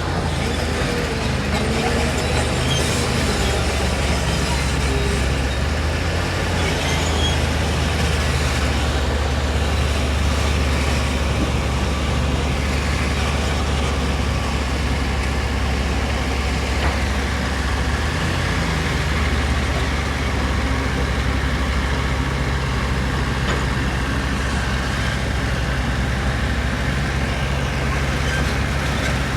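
Heavy diesel construction machinery running steadily: a deep, continuous engine drone under broad mechanical noise.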